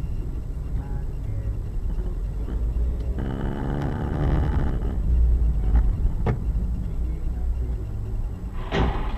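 Steady low rumble of a car driving, with a brief rush of broader noise about three seconds in and a sharp click a little after six seconds.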